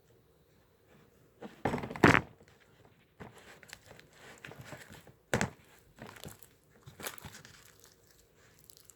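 Handling noises: a loud rustling thump about two seconds in, a sharp knock a few seconds later, and scattered crinkling and tapping in between.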